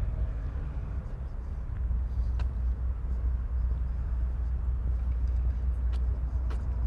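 Outdoor city ambience: a steady low rumble with a few faint short clicks.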